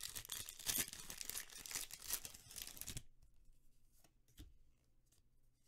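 Foil wrapper of a football card pack being torn open and crinkled for about three seconds, then a few faint clicks as the cards are handled.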